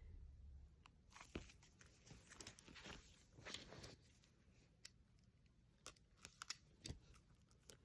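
Faint handling of an album's plastic shrink wrap being cut open: soft crinkling in the first half, then a string of separate sharp clicks and ticks.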